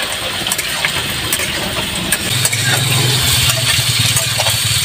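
Sliced onions sizzling in hot oil in a steel kadhai, with a metal spatula scraping and tapping the pan as they are stirred. A low steady hum comes in about two seconds in.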